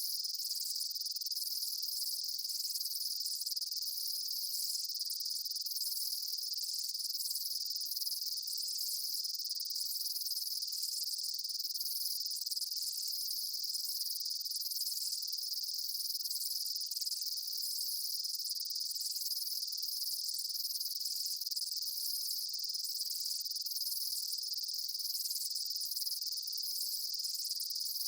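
Chorus of daytime field insects, crickets among them, keeping up a steady high-pitched trill, with a faint swell about every two seconds.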